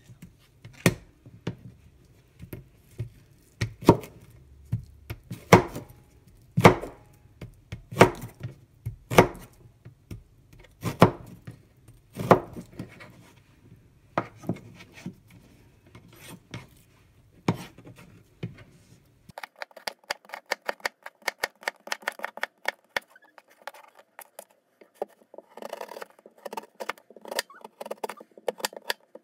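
Kitchen knife cutting Korean radish on a plastic cutting board: single cuts about once a second, then about two-thirds of the way through a fast run of quick, light knife strokes.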